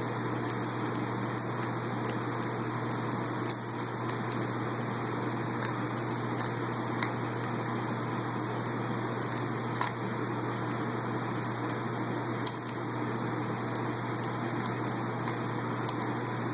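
Steady machine hum filling the room, with faint scattered clicks of a Rubik's Cube's layers being turned.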